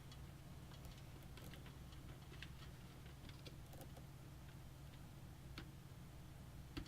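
Faint, scattered small clicks and taps of plastic front-panel connector leads being worked onto motherboard header pins, over a steady low hum.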